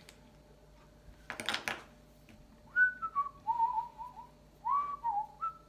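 A man whistling a short, wavering tune that steps down and back up in pitch and ends on a held higher note. A brief rustle comes before it.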